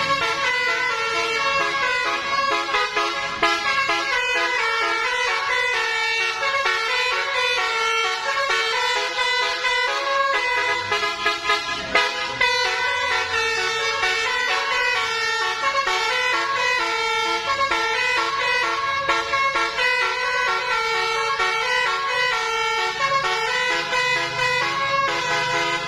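Basuri telolet horn, a multi-tone vehicle horn, playing a fast tune of rapidly changing notes without a break.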